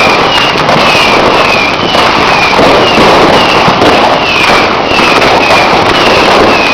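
Dense, continuous crackling of many firecrackers and fireworks going off at once, loud and unbroken. Over it, a short, high falling chirp repeats about twice a second.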